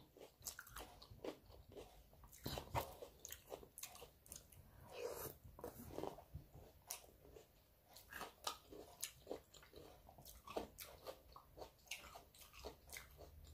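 A person eating close to the microphone: faint, irregular bites and chewing with wet mouth smacks.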